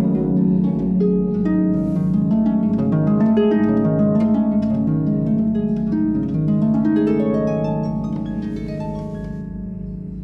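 Concert pedal harp played solo: a flowing passage of plucked notes and chords that ring on over one another, thinning out and growing quieter over the last two seconds.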